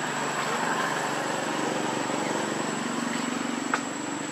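A steady engine drone, with a thin high whine held throughout and one sharp click late on.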